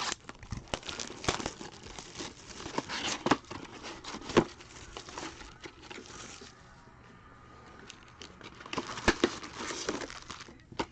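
Basketball card packs being torn open and their wrappers crinkled, in two bouts of rustling and tearing with a quieter stretch between.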